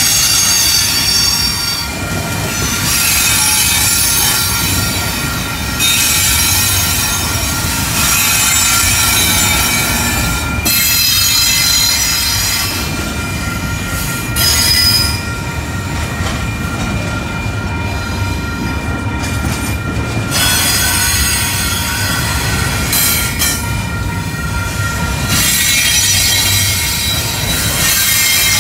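Double-stack intermodal train rolling past close by: a steady low rumble of wheels on rail, with high-pitched wheel squeal that swells and fades every two to three seconds.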